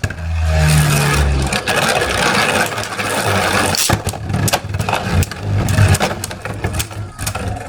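Beyblade spinning tops whirring and scraping against each other in a plastic stadium. A dense grinding whir comes first, then a run of sharp clicks as the tops hit each other.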